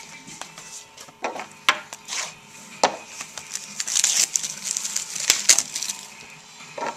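A foil trading-card pack wrapper being torn open and crinkled by hand, with scattered sharp clicks and rustles; the crinkling is thickest from about four to six seconds in.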